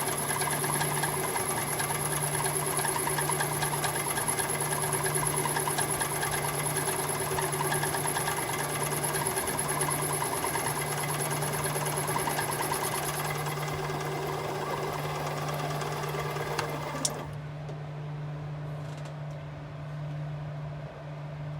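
Machine tool running and cutting steel, a steady rhythmic mechanical sound with a high whine, which stops after a click about 17 seconds in. A low steady hum carries on after it.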